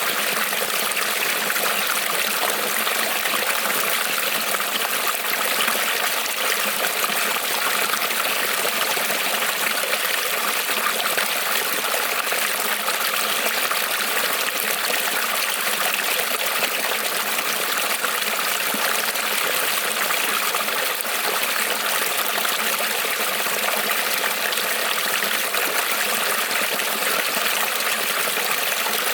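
Small creek rippling and trickling over stones, a steady, even rush of running water.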